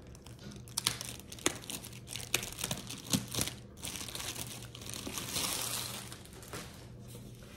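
Plastic packaging crinkling and rustling in irregular crackles as a diamond painting canvas is pulled out of it, with a denser stretch of rustling a little past halfway.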